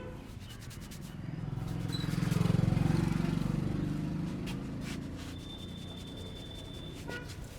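A motor vehicle passing close by, its engine sound swelling and then fading over about three seconds, over the light rubbing of hands working a head massage.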